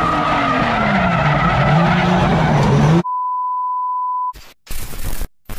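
Drift cars sliding in tandem: tyres squealing over engine sound whose pitch falls and then wavers. About three seconds in it cuts to a steady test-pattern beep, followed by short bursts of static with gaps.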